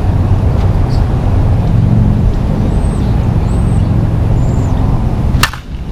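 A loud, steady low rumble with a hum in it. Near the end comes a single sharp crack: an aluminum senior softball bat hitting a softball.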